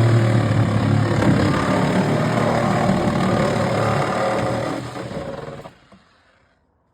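Power tool, a reciprocating saw or grinder, running under load as it cuts into a car's trunk sheet metal. It runs steadily, then winds down and stops about five and a half seconds in.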